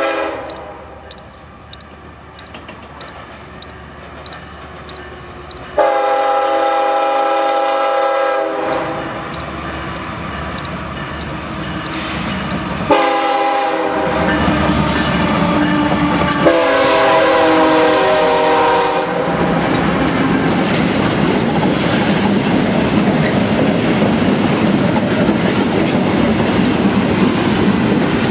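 CSX locomotive air horn sounding three long blasts as a light engine move of six diesel locomotives approaches. From about two-thirds of the way in, the locomotives pass close by: diesel engines running with rapid clicking and clatter from the wheels on the rails.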